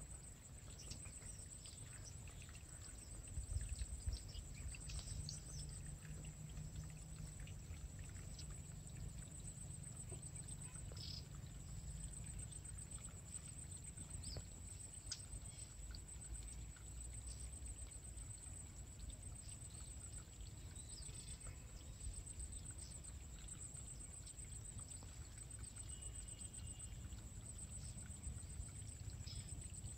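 Quiet rural field ambience: a steady high-pitched buzzing whine, a low rumble that is stronger in the first half, scattered small clicks and a few short high chirps.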